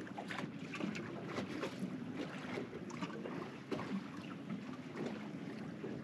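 Water slapping and lapping against a boat's hull, with wind buffeting the microphone.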